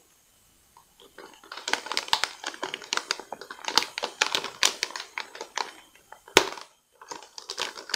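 Metallised anti-static bag crinkling and rustling as it is cut open around a graphics card, a dense run of small crackles with one sharper click near the end.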